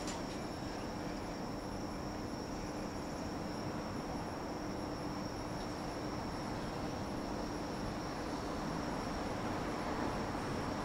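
Steady outdoor evening ambience: a continuous high-pitched insect trill over an even low rumble and a faint steady hum, getting slightly louder near the end.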